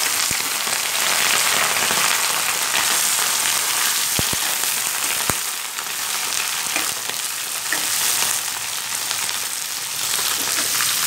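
Eggplant and potato cubes sizzling steadily in hot oil in a frying pan while being stirred with a steel ladle, with a few light clicks of the ladle against the pan.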